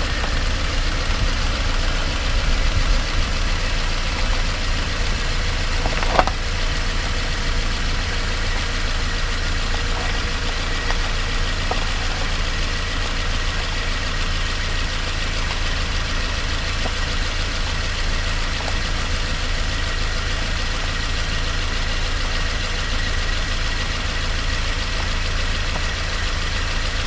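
Steady road, tyre and engine noise with low rumble, heard from beneath a moving 2018 Subaru Outback. A single sharp knock comes about six seconds in, with fainter ticks later, of the kind the owner hears as a clunk from the driver's side front wheel area.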